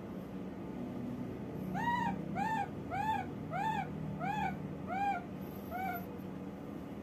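Baby macaque giving a run of seven short, high coo calls, each rising then falling in pitch, about one every two-thirds of a second. They begin about two seconds in and grow fainter toward the end.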